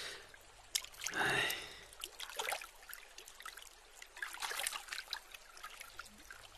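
Light trickling and dripping water around a wooden oar as a rowboat moves, in many small splashes. A short breathy vocal sound comes about a second in.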